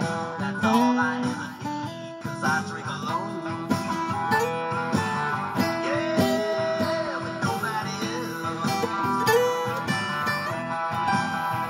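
Acoustic guitar played in a bluesy style: picked notes over chords, with some notes sliding in pitch.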